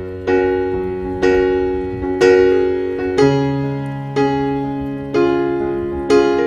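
Background music: slow electric piano chords, one struck about every second and left to fade.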